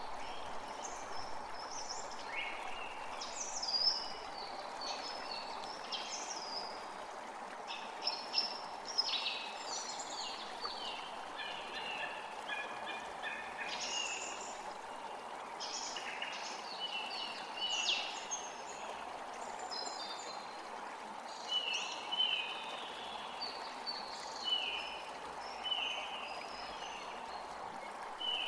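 Several birds singing and calling, a mix of varied chirps and trills, over a steady rushing background. In the second half one bird repeats a short call about once a second.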